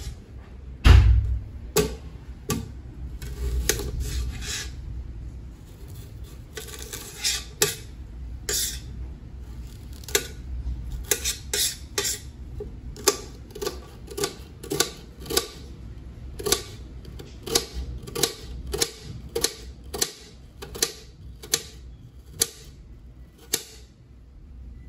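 Kitchen knife cutting red onions on a stainless steel chopping board, the blade tapping against the metal: irregular taps at first, then a steady run of about two taps a second. A heavier thump comes about a second in.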